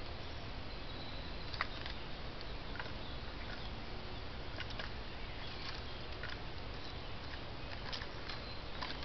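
Woodland ambience: a steady hiss, with scattered faint clicks and rustles and a few short, high chirps.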